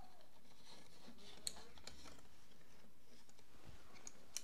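Light handling of a plastic thermostat backplate and trim plate against a wall: a few small plastic clicks and rustles, the sharpest about a second and a half in.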